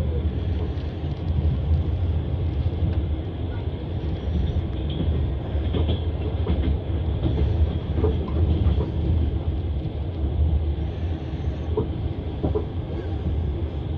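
Passenger train running along the track, heard from inside the carriage: a steady low rumble with scattered clicks of the wheels over the rails.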